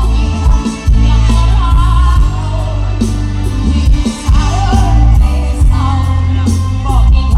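Loud music with a singing voice over a heavy, steady bass line.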